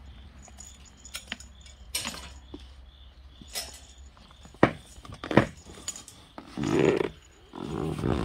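Kittens in harnesses scuffling on a fabric blanket: rustling with scattered small clicks and jangles of harness and leash clips. Two sharp knocks come about halfway through, and there is louder rustling near the end.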